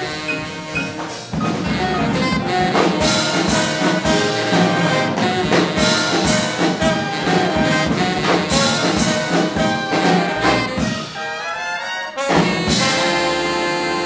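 Big band jazz orchestra playing a hot swing tune, with trumpets, trombones and saxophones. About eleven seconds in the music dips briefly, then the band comes in on long held notes.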